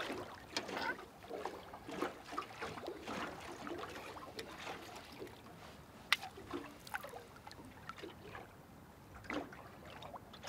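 Faint water trickling and dripping from a freshly caught squid held over the side of a small boat, with water lapping and a few light clicks, the sharpest about six seconds in.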